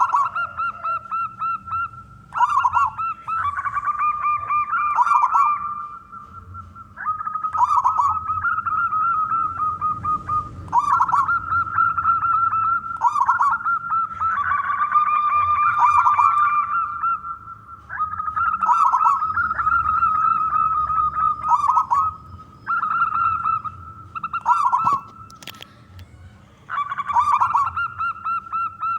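Local wild-type zebra dove (perkutut) singing its trilled, pulsing coo song, repeated in phrases of a few seconds each with short pauses between.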